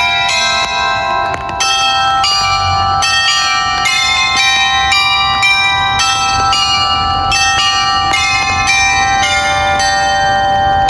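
Glockenspiel of the Hochzeitshaus in Hameln playing a melody on its facade bells: a run of struck bell notes at changing pitches, about two a second, each ringing on into the next.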